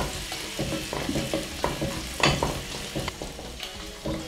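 Chopped onions, garlic and red and green bell peppers sizzling as they stir-fry in hot oil in a pot. A spatula scrapes and knocks irregularly against the pot as it stirs them.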